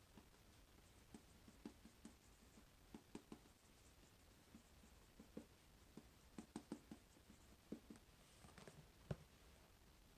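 Faint scratches and taps of a marker writing on a small whiteboard, in short irregular strokes, with a single sharper knock about nine seconds in.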